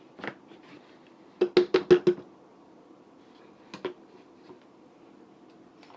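Sharp knocks and taps from handling a blender jar and its lid: one single knock, then a quick run of about five knocks about a second and a half in, and another single knock later.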